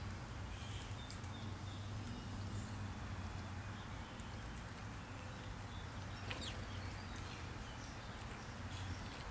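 Faint outdoor ambience: a steady low hum with a few faint, short bird chirps and light clicks, one chirp clearer about six seconds in.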